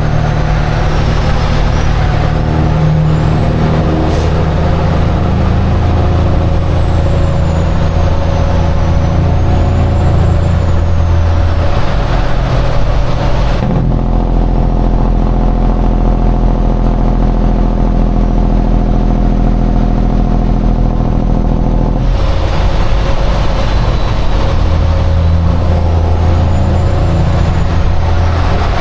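Semi truck's diesel engine running steadily while driving on the highway, heard from inside the cab. For about eight seconds in the middle the hiss drops away and the engine becomes a smoother, steady hum, and then the fuller sound comes back.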